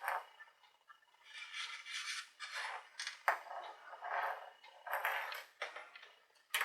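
Metal parts being handled on a workbench: a string of short clinks and scrapes, with sharper knocks a little after three seconds in and again near the end.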